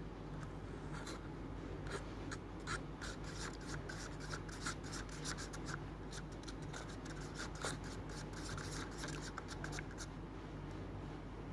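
Wooden stick stirring a bubbly liquid in a bowl, scraping and clicking against the bowl's sides in quick strokes that start about a second in and stop near ten seconds in. A low steady hum runs underneath.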